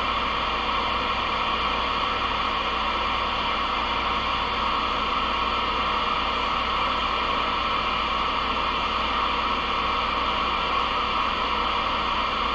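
Galaxy DX 33HML CB radio's speaker giving out steady static hiss, with no station coming through on the channel.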